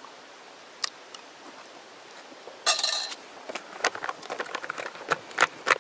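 A Mountain House freeze-dried meal pouch being handled and its top folded to seal it. There are a few light clicks at first, a short rustle just under three seconds in, then irregular crinkling crackles through the second half as the pouch top is worked shut.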